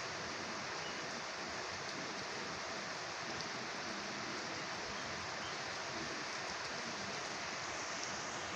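Light shower rain falling steadily, an even wash of noise with no distinct drops or pauses.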